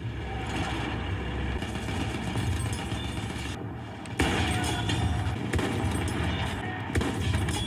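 Video game battle audio: gunfire and explosions over a low engine rumble, with a sudden loud bang about four seconds in and more sharp hits after it.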